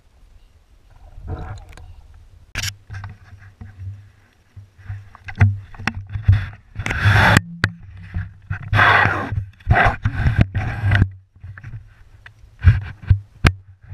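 Irregular splashes, knocks and scrapes as a waterproof GoPro in its housing is handled at the water's edge and set down on the rocks. The busiest handling is in the middle, with sharp clicks near the end.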